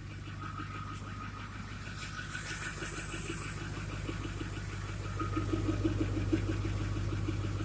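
Ford 6.4 L Power Stroke turbo-diesel V8 idling steadily, with an even rhythm, shortly after a cold start without glow plugs; it has not gone into high idle. A brief high hiss sounds about two to three and a half seconds in.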